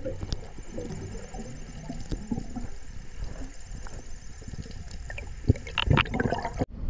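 Water sloshing and gurgling with scattered knocks, and a few louder thumps about five to six seconds in.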